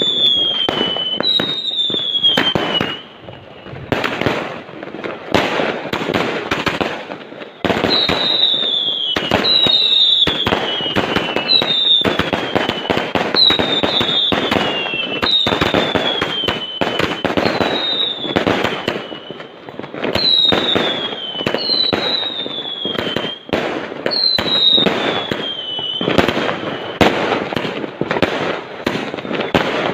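Fireworks going off in a continuous barrage of bangs and crackling. Every second or two, with a few gaps, a shot carries a short whistle that falls in pitch.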